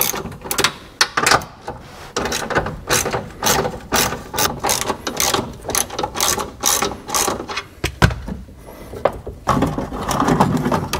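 Hand ratchet wrench clicking in quick runs of strokes as the nuts holding up the steering column are backed off to lower it. Near the end the clicking gives way to rustling handling noise.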